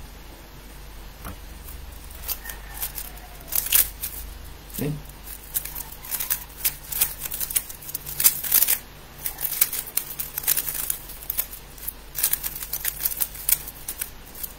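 Plastic 3x3 speed cube being turned rapidly during a timed solve: a fast, uneven run of clicks and clacks from its layers.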